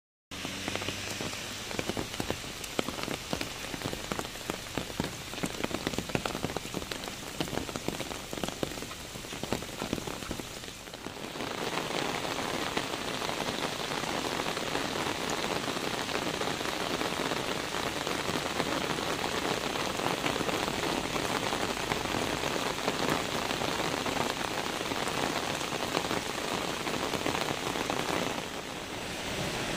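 Heavy rain falling, with many distinct drop hits for the first ten seconds or so. About eleven seconds in it changes to a denser, steady hiss of rain falling on a flooded street.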